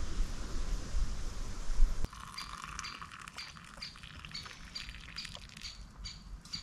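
A low rumbling noise for about two seconds, then a small black-and-white woodpecker calling, a short high 'bip' repeated about three times a second, over a faint trickle of hot tea being poured from a pot into a cup.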